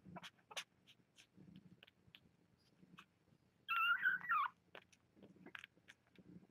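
A young kitten, about three and a half weeks old, gives one wavering mew lasting nearly a second, about four seconds in, among faint scattered clicks.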